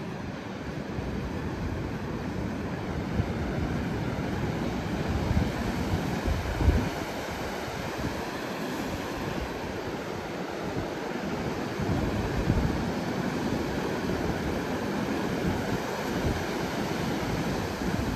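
Wind buffeting the microphone in gusts over the steady rush of North Sea surf; the strongest gust comes about a third of the way in.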